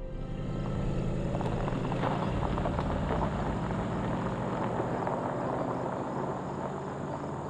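Cadillac sedan's engine running as the car pulls away, tyres crunching over gravel. The engine tone is plainest in the first two seconds, and the crunching thins out as the car drives off.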